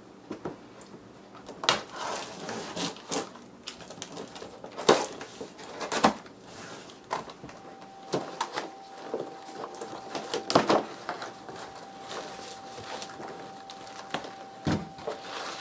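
Large cardboard solar-panel shipping box being handled and opened: scattered knocks, scrapes and rustles of cardboard and plastic wrap. A faint steady tone comes in about halfway.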